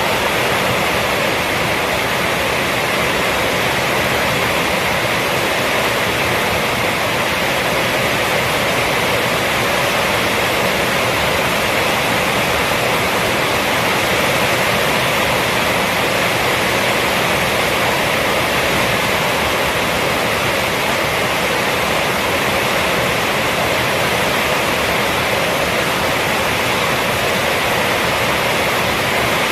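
Heavy rain from a rainstorm falling on a roof, a dense, even wash of drops with no break or change in strength.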